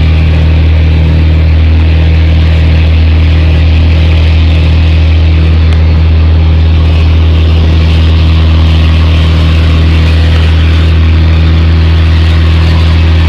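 Outrigger fishing boat's engine running steadily under way, a loud, even low drone with the hiss of water and spray over it.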